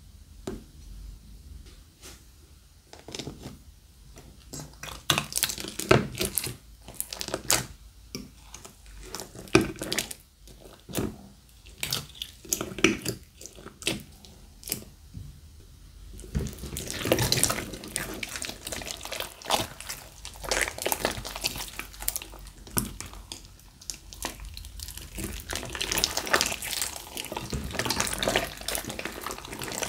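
Slime with glitter, sequins and beads mixed in being stirred and squeezed by hand: sticky wet clicks, pops and squelches. They are sparse at first, come thick and fast from about five seconds in, and turn into a denser, louder squelching crackle about halfway through.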